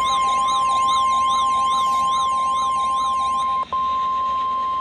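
Steady 1050 Hz weather-radio warning alarm tone announcing a severe thunderstorm warning. For the first three and a half seconds it is overlaid by a warbling siren-like alert, sweeping up and down about twice a second, and a pulsing lower beep. The tone breaks off for an instant a little before the end, then carries on alone.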